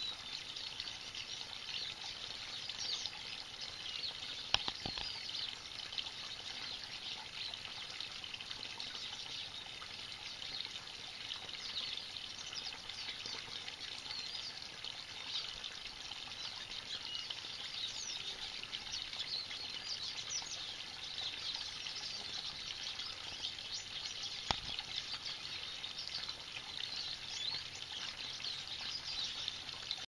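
Water spilling steadily over a small stone garden waterfall, under a busy chorus of small birds chirping throughout. Two short sharp clicks stand out, a few seconds in and again near the end.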